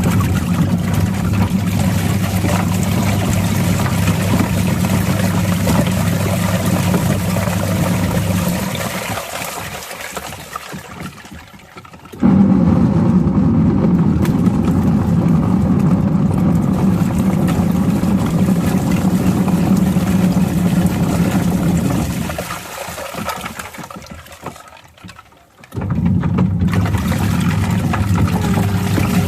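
Washing machine motor running with water churning in the drum. Twice it coasts down to a stop over a few seconds and then starts again abruptly, the run-and-pause rhythm of a wash cycle.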